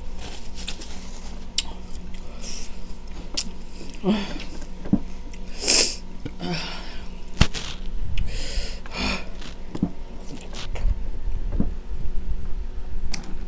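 A person eating hot-sauce-covered watermelon: a metal spoon clicking and scooping the soft flesh in the rind, with sharp sniffs, snorts and short vocal breaths from the chile heat. The loudest is one sharp nasal burst about six seconds in.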